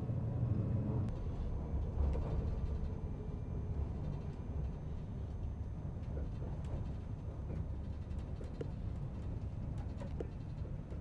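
Steady low running rumble inside the cabin of a moving Astoro high-speed train, with faint scattered clicks and rattles.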